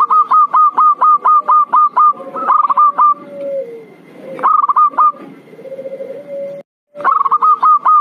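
Zebra dove (perkutut) lure call: runs of short, sharp notes at about five a second, alternating with lower rolling coos. The sound drops out briefly near the end.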